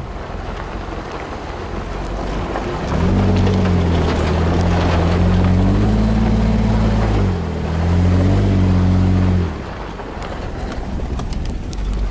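Off-road 4x4's engine working hard up a steep rocky climb: it revs up about three seconds in, eases off briefly near the middle, revs again, then drops back to a lower drone about two seconds before the end. A steady rumble of driving over rough ground runs underneath.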